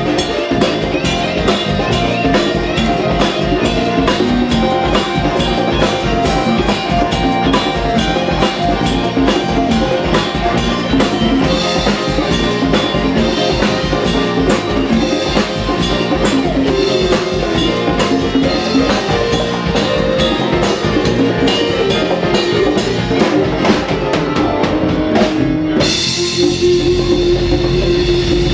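Live Latin band playing, with drum kit and percussion keeping a busy, steady rhythm under the other instruments. About two seconds before the end the drumming stops and one held note rings on.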